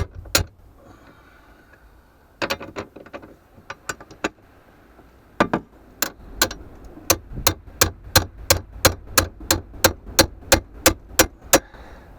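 Sharp metallic clicks of a ratchet wrench working on the bolts of a van floor plate: a few scattered clicks, then a burst of clicks, then a steady run of about three clicks a second in the second half as the bolt is turned out.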